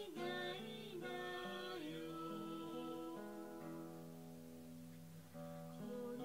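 Background music led by a plucked acoustic guitar, with held notes and a gliding melody line.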